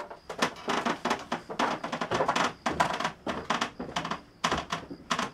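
A quick, irregular run of sharp taps and knocks, several a second, that fades near the end.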